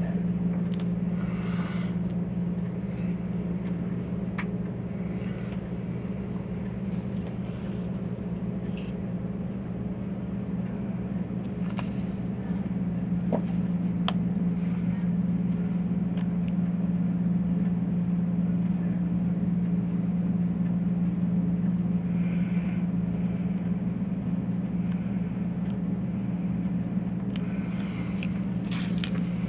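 A steady machine hum at an even pitch, with a few faint clicks and ticks on top.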